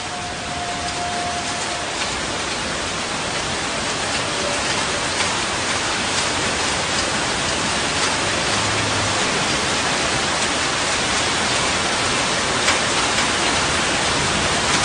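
Heavy rain and rushing floodwater running through a street: a steady hiss of water that swells over the first couple of seconds, then holds.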